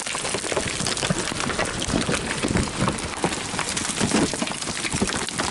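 Heavy rain pelting down: a dense, steady patter of many small impacts.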